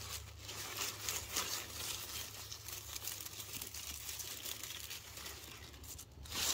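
Leafy cucamelon vines rustling and crinkling as hands push through them to pick the tiny fruit, in small irregular bursts with a louder rustle near the end.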